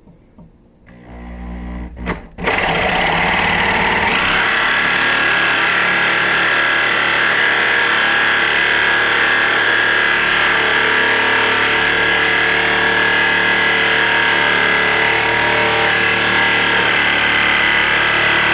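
An electric power tool starts about two seconds in and runs steadily at high speed with a constant whine, working on a locked door.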